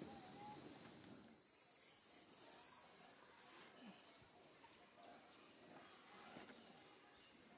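Faint, steady, high-pitched drone of an insect chorus in the surrounding vegetation.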